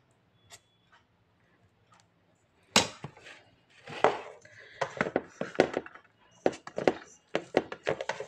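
Tableware clatter as food is handled on a stainless steel plate: a quick, irregular run of clicks and knocks that starts nearly three seconds in.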